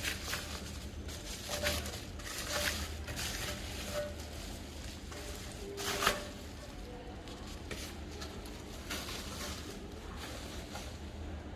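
Parts and packaging of an engine kit being handled: faint rustling and scattered light clicks over a low steady hum, with one sharper knock about six seconds in.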